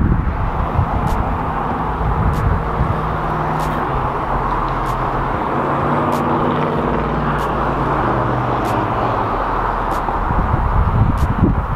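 Steady road traffic noise with wind gusting on the microphone; the gusts rumble near the start and again near the end.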